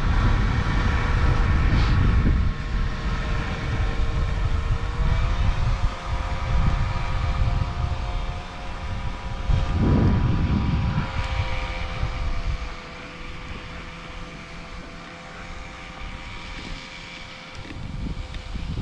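A steady engine drone, stepping up slightly in pitch about five seconds in, over wind rumbling on the microphone that eases off after about twelve seconds.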